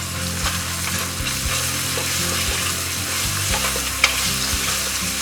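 Ginger-garlic paste and browned onions sizzling in hot ghee and oil in a pressure cooker, with a steady frying hiss. A spoon stirs through it, and a few sharp clicks come where it knocks against the pan.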